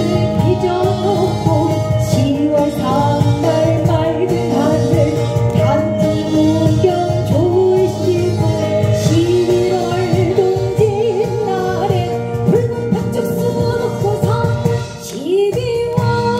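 Korean traditional (gugak) music: a voice sings a sliding, heavily ornamented melody over steady held instrumental tones.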